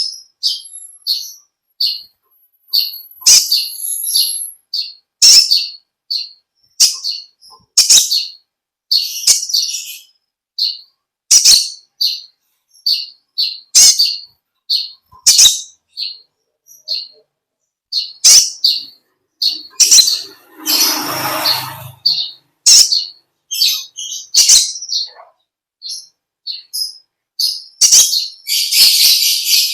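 A kolibri ninja sunbird singing: a steady string of short, high chirps, with longer, dense chattering runs about nine seconds in and near the end. A brief rustling noise comes about twenty seconds in.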